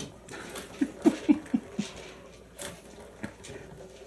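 Kitten batting the balls around a three-tier plastic ball-track toy: a quick run of about five knocks a little after a second in, then scattered fainter clicks as the balls roll in the tracks.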